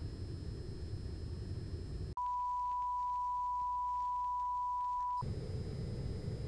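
Steady pure test tone of the kind played with colour bars, cutting in sharply about two seconds in, holding for about three seconds and stopping abruptly. Before and after it there is a low hum with static and a faint high whine.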